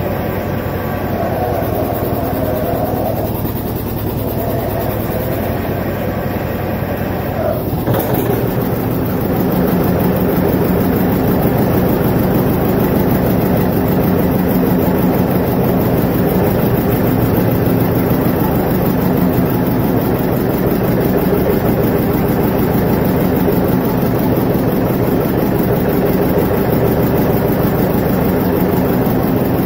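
Heavy tractor engine running while the John Deere 720 diesel is belt-started after its head gasket repair, cranked over with the decompression lever until it gets its fuel. About eight seconds in there is a sharp click, and from then on the engine sound is louder and steadier.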